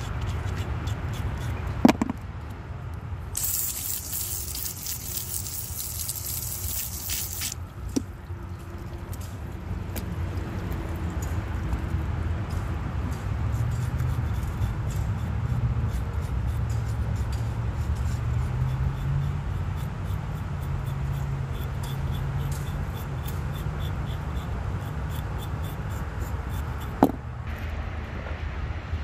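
A knife scraping the wet hide of bear feet on a wooden board, with a few seconds of spraying water near the start and a few sharp knocks. A steady low rumble runs underneath.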